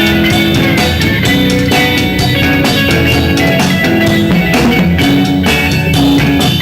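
Live rock band playing, with electric guitar over a drum kit.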